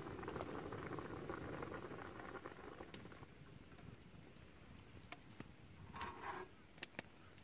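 Water boiling in a mess tin on a gas camp stove, the bubbling dying down partway through. A few light clicks and a brief rustle follow near the end.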